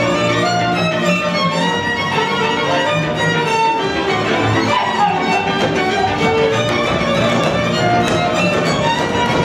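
Live Hungarian folk string band playing a lively dance tune, the violin leading over double bass accompaniment, with short taps of dancers' steps on the stage in the second half.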